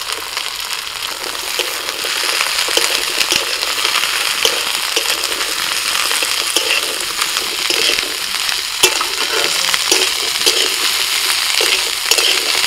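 Chopped potato, flat beans and bottle-gourd stalks sizzling in hot oil in a metal kadai while a metal spatula stirs and scrapes them against the pan. The sizzle grows louder about two seconds in, and there is a sharp clink of the spatula about nine seconds in.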